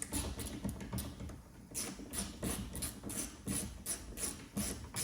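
Hand driver with a Torx T25 bit undoing the last screw holding a car door mirror: a run of regular sharp clicks, about three a second, starting nearly two seconds in.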